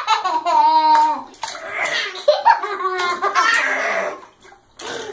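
A baby and a young boy laughing and squealing in a bathtub, with water splashing between the outbursts.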